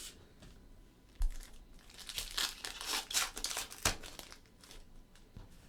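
A trading card pack wrapper being torn open and crinkled by hand, with a couple of sharp snaps and a few seconds of crackling.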